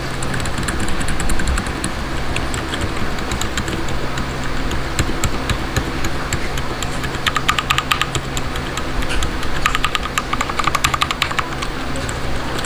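Typing on a Rakk Ilis mechanical keyboard fitted with Outemu Silent Yellow switches: a steady stream of key clicks, with two runs of fast repeated presses a little after the middle. A steady low hum runs underneath.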